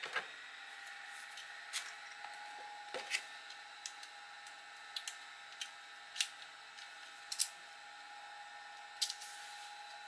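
Light, separate clicks and taps of small rotary-tool bits and accessories being handled and picked out of a foam-lined aluminium case, about a dozen at irregular intervals. A faint steady whine runs underneath.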